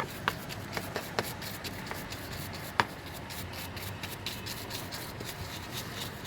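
A stiff chain-cleaning brush scrubbing a motorcycle's chain drive, a steady scratchy rubbing broken by irregular sharp clicks, the loudest about three seconds in.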